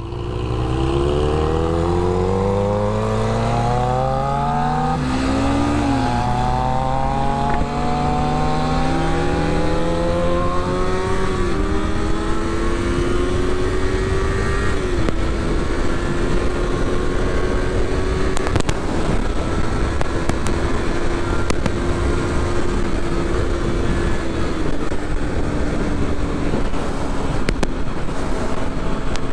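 Kawasaki Ninja 250's parallel-twin engine accelerating hard from a stop, its pitch climbing and dropping back at each of several upshifts in the first fifteen seconds. It then runs steadily at high revs at freeway speed, with heavy wind noise on the helmet-mounted microphone.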